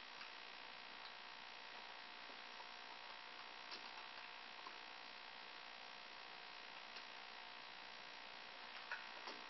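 Near silence: the faint steady electrical hum and hiss of a low-quality camera microphone in an empty room, with a few faint ticks, the clearest near the end.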